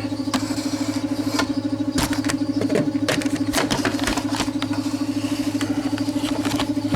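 A machine running in the background, a steady hum that pulses quickly and evenly, with scattered clicks and knocks of handling over it.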